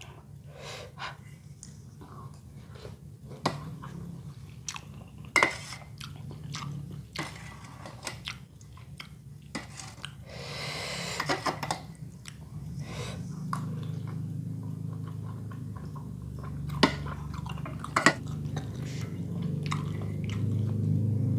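Close-up mouth sounds of someone eating bakso Malang with noodles: chewing, with scattered sharp clicks and a longer noisy stretch about halfway through. A low hum grows louder near the end.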